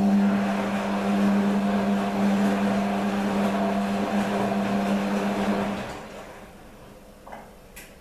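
Beko front-loading washing machine running with a steady hum and a rushing noise, which stop about six seconds in. Two short clicks follow near the end.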